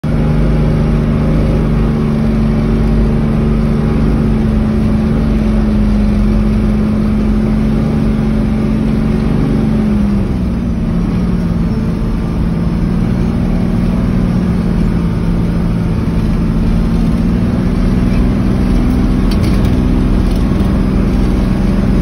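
Off-road vehicle's engine running steadily, heard from inside the cab as it drives; its pitch drops about ten seconds in.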